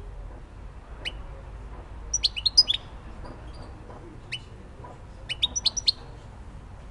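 European goldfinch singing in short phrases: a single high note about a second in, a quick burst of high twittering chirps, another lone note, then a second burst of chirps near the end.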